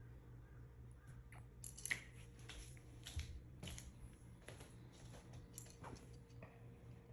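Faint clicking and knocking of hanging toys on a baby play gym being batted by a baby: a scattered run of light knocks, the loudest about two seconds in.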